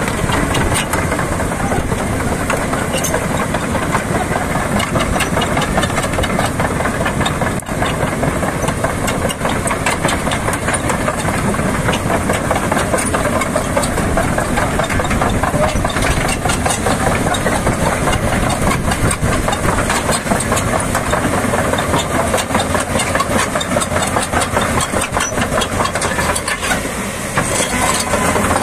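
Komatsu PC490LC crawler excavator's diesel engine running steadily while the machine travels on its steel tracks, with a rapid run of clicks and clanks from the track links.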